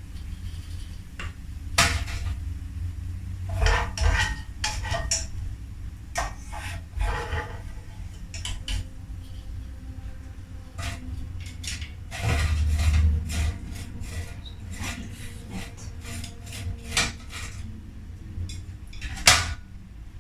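Kitchen utensils clinking and knocking against pots, pans and dishes in scattered, irregular knocks, over a steady low hum.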